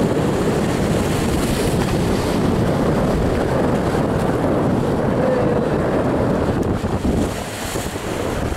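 Wind buffeting the microphone over the sea, with waves washing and breaking against the rocks.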